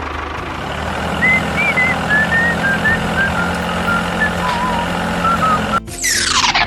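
A steady engine-like running noise with a low hum, with a string of short chirps above it. Near the end it cuts out and a quick falling whoosh follows.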